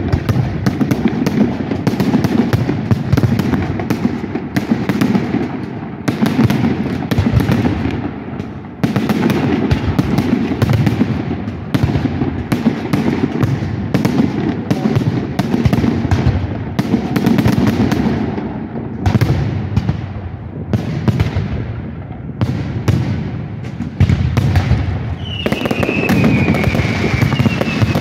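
Fireworks display: rapid, continuous bangs and crackling shell bursts, with a whistle falling in pitch near the end.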